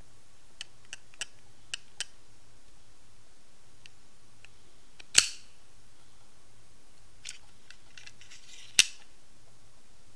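Schrade Viper out-the-front knife firing its blade out with one loud, sharp metallic snap about five seconds in, then snapping it back into the handle with a second loud snap near the end. Light clicks of the thumb slider and handling come before each snap.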